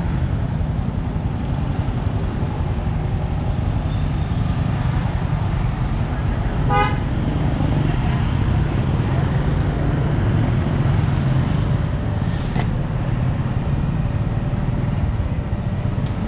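Steady low rumble of wind and road noise from travelling along a road. A vehicle horn gives one short toot a little under seven seconds in.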